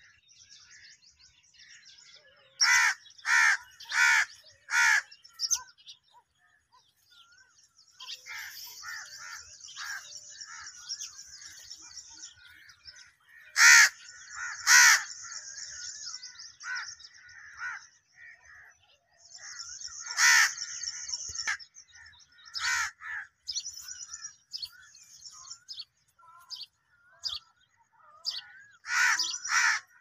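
Crows cawing in short runs, four caws a few seconds in and more scattered later, with a quick run near the end. Small birds chirp high and busily between the caws.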